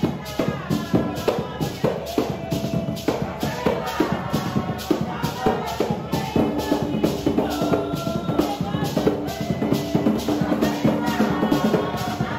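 Garifuna drumming: two hand drums, a tall one and a smaller one, beaten in a fast, driving rhythm, with voices singing over the drums from about two seconds in.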